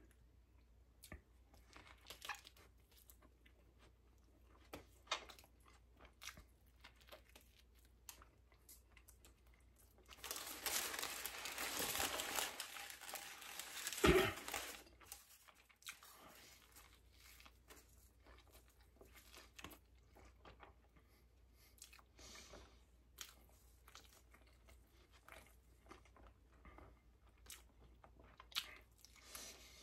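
Quiet mukbang eating sounds: soft chewing and small mouth clicks, with a few seconds of food wrapper crinkling about a third of the way in that ends in a single sharp knock.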